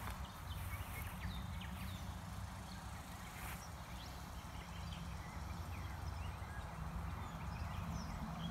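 Outdoor garden ambience: a steady low wind rumble on the microphone, with many short bird chirps scattered throughout.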